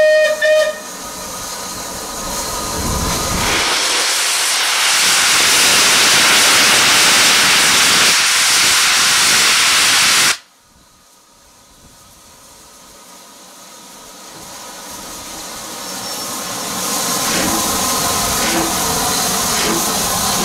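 A steam locomotive's whistle ends just under a second in, followed by loud, steady steam hiss for about nine seconds. The hiss cuts off suddenly about halfway through, and a much quieter sound then slowly builds.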